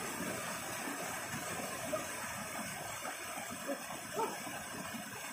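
Steady rushing of a mountain stream or small waterfall, with a couple of faint short sounds about two and four seconds in.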